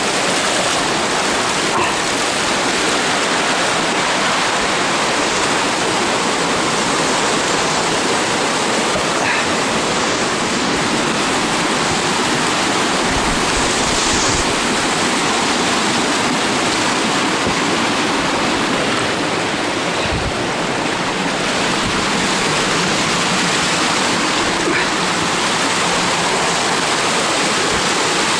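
Water of a small waterfall and burn cascading over mossy rocks, a steady, unbroken rush.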